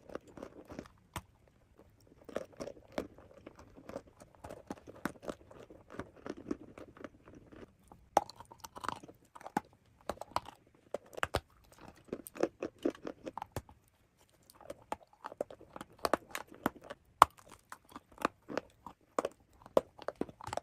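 Close-miked ASMR crunching: many quick, irregular crisp crunches and crackles in clusters, with short pauses and one brief lull about two-thirds of the way through.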